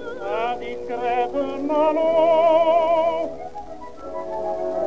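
Operatic singing with a wide vibrato over orchestral accompaniment, from an early acoustic 78 rpm disc recording of a soprano-tenor duet, noise-reduced. The line glides upward at first, holds a long note, then eases off briefly near the end before the singing resumes.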